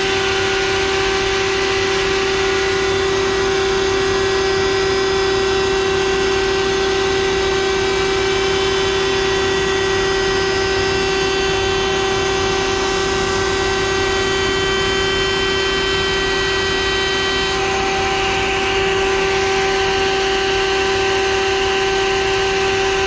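Table-mounted router running at full speed with a steady high whine while a board's edge is fed past the bit along the fence, jointing the edge straight. The whine holds steady throughout, getting a little louder near the end.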